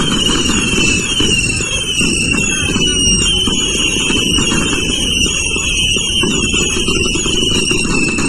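Whistling fireworks going off in rapid succession, a string of overlapping short whistles that each slide down in pitch, over a steady low rumble.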